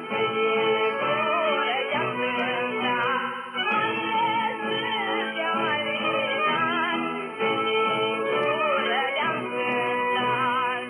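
Traditional Maramureș folk song, voices singing over instrumental accompaniment, received from a DRM digital shortwave broadcast and heard through a Gospell receiver's speaker. The music cuts away at the very end.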